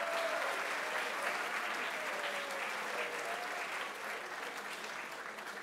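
Audience applauding, a dense, steady clapping that slowly fades toward the end.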